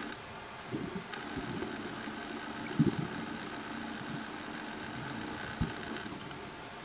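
Sound heard underwater: a steady engine-like hum, with a few short dull knocks, the loudest near the middle.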